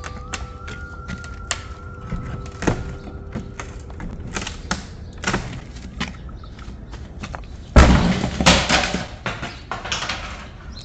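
Old wooden door being forced open with a small metal tool: scattered clicks and knocks at the lock, then a loud rough scraping burst about eight seconds in as the door gives way, and a smaller one after it.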